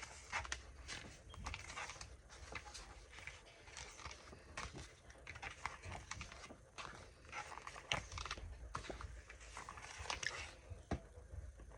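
Sticker-book paper pages being handled and turned: irregular rustling and crinkling with scattered light taps.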